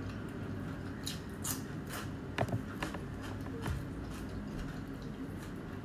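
A person chewing and crunching raw leafy greens close to the microphone, in a run of short crisp bites densest between about one and three seconds in, with a few light clicks over a low steady hum.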